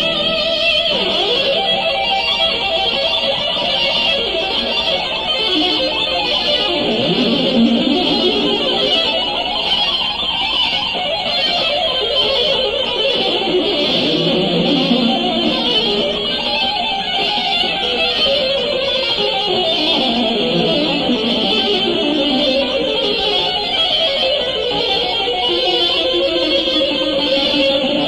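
Electric guitar playing a fast, unbroken stream of notes in running lines that climb and fall in pitch.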